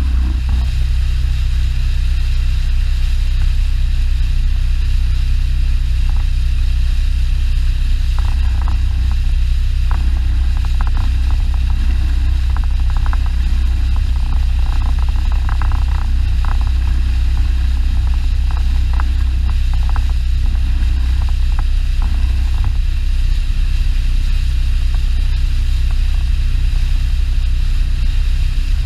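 Outboard motor of a small Polarcirkel boat running steadily at low speed, a deep constant drone. Light irregular ticking and rattling comes through from about eight seconds in until past twenty seconds.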